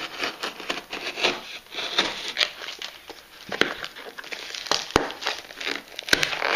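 Paper and plastic parcel packaging crinkling and tearing as it is cut open with a knife and pulled apart by hand, with a few sharp clicks.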